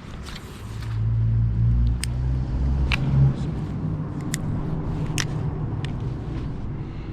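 Low rumble of a motor vehicle passing on a nearby road, swelling about a second in and then easing off. About five short sharp clicks sound over it.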